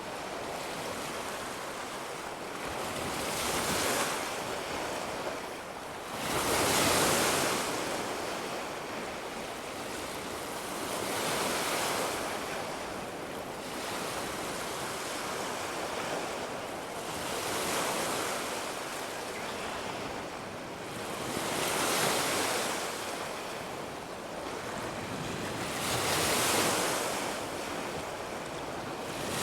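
Sea waves breaking and washing up a beach: a steady hiss of surf that swells into a louder surge about every four to five seconds.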